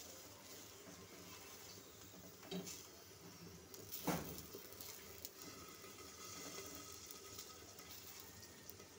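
Aloo paratha frying faintly on a hot iron tawa as a steel spoon spreads melted fat over it. The spoon knocks against the pan twice, the louder clink about four seconds in.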